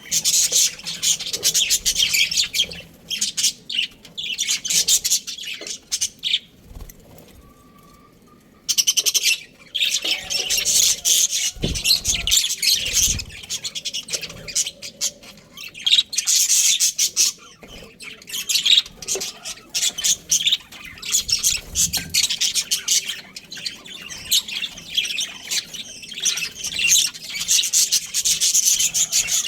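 Budgerigars chirping and chattering in rapid, busy bouts, with a lull of a few seconds about a fifth of the way in.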